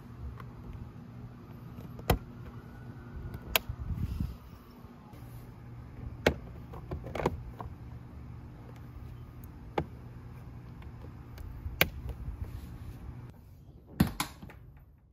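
Plastic trim panels on a Suzuki Burgman 400 scooter being pressed and snapped back into place: sharp single clicks every second or two, over a faint steady low hum. Near the end comes a louder cluster of knocks as the seat is shut.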